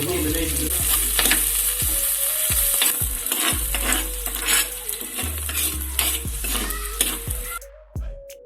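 Food sizzling in hot oil in a pan while it is stirred, with scraping strokes about once or twice a second. The sizzle cuts off suddenly near the end.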